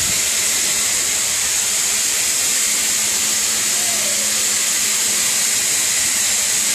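Electric upholstery sprayer running, a steady hiss of spray over a constant motor hum.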